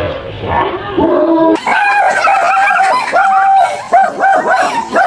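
A dog barking at a rapid pace, about three short barks a second, starting about a second and a half in after a noisier scuffling stretch.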